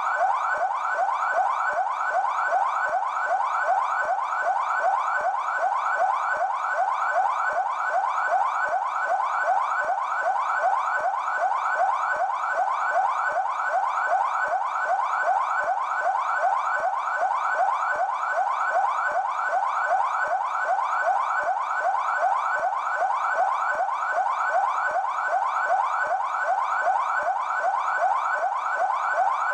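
PMESP (São Paulo Military Police) siren on its yelp tone: a fast, unbroken warble whose pitch sweeps quickly and evenly over and over, several times a second.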